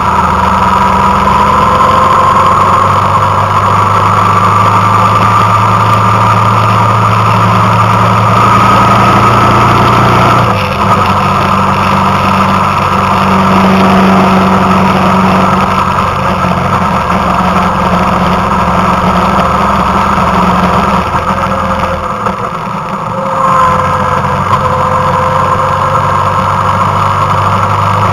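Motorcycle engine running steadily under way along a winding road, its note easing off briefly about a third of the way in and again about three-quarters through before picking up.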